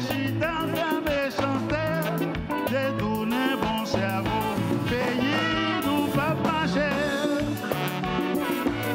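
Live band music: a man singing lead over a horn section with trumpets, a steady bass line and percussion.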